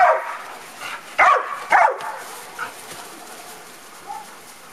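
Dog barking: three short barks in the first two seconds, then quiet.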